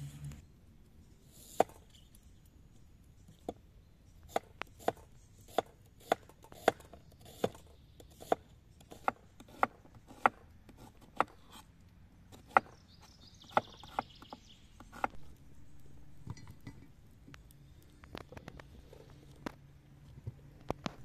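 Knife slicing an onion on a wooden cutting board: a run of sharp knocks as the blade meets the board, about one to two a second, dying away a little past the middle.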